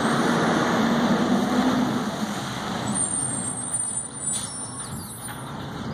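Automated side-loader garbage truck driving past and pulling away, its engine running loud at first and then fading. About three seconds in there is a thin high squeal lasting about a second, typical of the truck's brakes.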